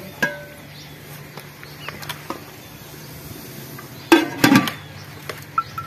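A steel lid set down on a steel cooking pot, making two metal clanks about four seconds in, with a few faint clicks before.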